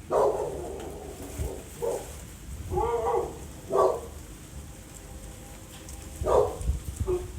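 A dog barking, about six short barks at irregular intervals.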